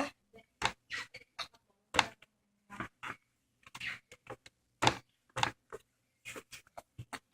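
Toddler eating a snack: short, irregular mouth smacks and chewing clicks, about fifteen in all, a few with a faint bit of voice.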